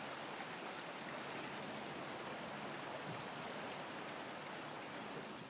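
Flowing river water: a steady, even rushing.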